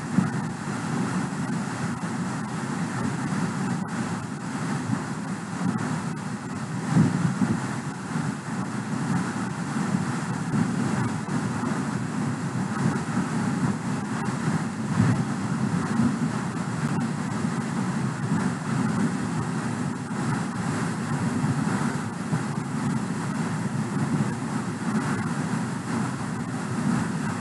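Steady background noise, strongest low down, with a faint click about four seconds in.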